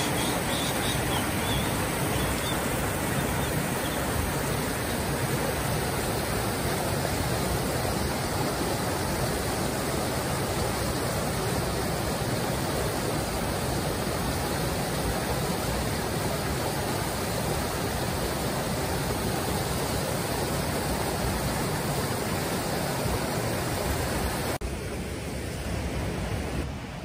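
Rushing mountain stream: a steady roar of water over rocks, with a few brief high chirps in the first couple of seconds, growing a little quieter near the end.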